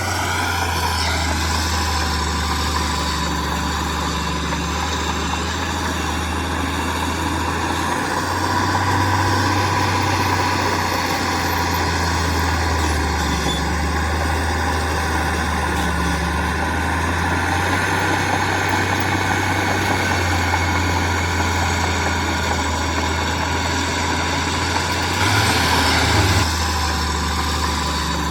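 Heavy diesel engine of construction machinery, a bulldozer or dump truck, running steadily with a deep low hum. It grows briefly louder near the end.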